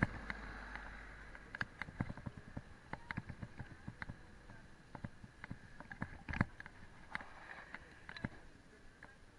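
Mountain bike rolling downhill on a paved street: irregular rattles and knocks as it jolts over bumps, over a steady high whir, with a low rumble in the first second or so.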